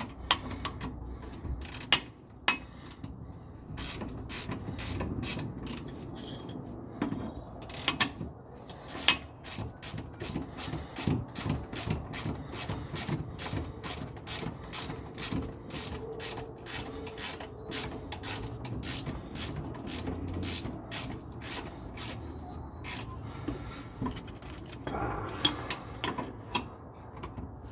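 Hand ratchet wrench clicking as it snugs down a shock absorber mounting bolt. A few scattered clicks and knocks come first, then a long run of steady, evenly spaced ratcheting strokes from about nine seconds in until a few seconds before the end.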